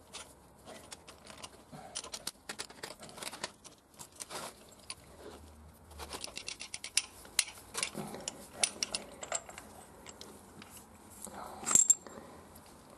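Steel spark plug socket and extension bar clicking and clinking in irregular taps as a spark plug is unscrewed from a Honda XL600V Transalp's cylinder head, with a brighter metallic clink near the end as the plug comes free.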